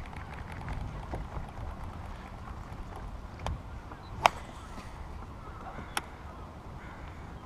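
Steady low water-and-wind rumble around a small fishing boat, with three sharp clicks or knocks, the loudest a little past four seconds in.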